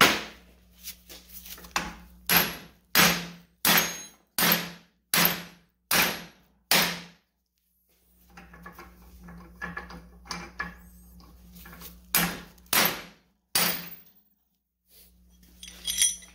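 A hammer striking a socket set against the bearing race of a Mercedes E430 (W210) front wheel hub held in a vise, driving the old race out. About nine sharp metallic knocks come at a steady pace, roughly one every 0.7 s. After a pause of several seconds, a few more blows follow near the end.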